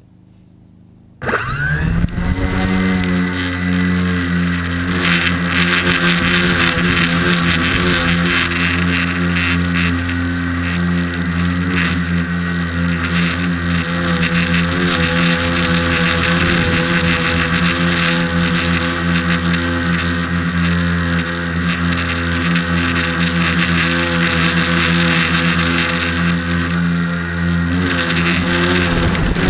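Tricopter's three NX-4008 brushless motors with 10-inch props, starting abruptly about a second in with a brief rise in pitch, then a loud, steady multi-tone buzz, heard close up from the onboard camera. It carries a buzzing rattle that the owner puts down to vibration from a broken cover plate.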